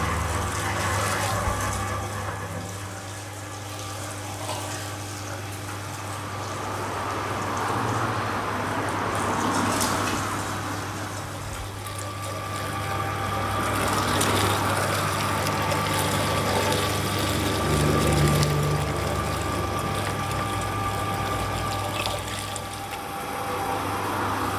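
Motor-driven meat grinder running steadily, mincing meat, with a constant low hum; a higher whine joins about halfway through, and the sound swells and eases as it works.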